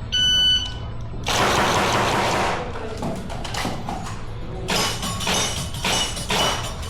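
An electronic start beep lasting under a second, then a rush of noise, then from about five seconds in a quick run of sharp rifle cracks with a ringing metallic tone.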